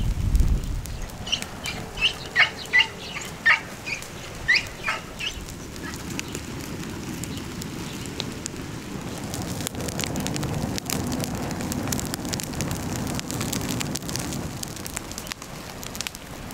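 Burning straw crackling and rustling, with the crackle thickening in the second half. In the first few seconds a bird gives a quick series of short, high chirps over it.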